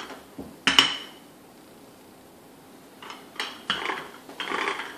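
A rolling pin with wooden handles rolling out pie crust dough on a pastry cloth over a wooden board. A sharp knock with a short ring comes about a second in, then after a pause four quick rolling strokes from about three seconds in.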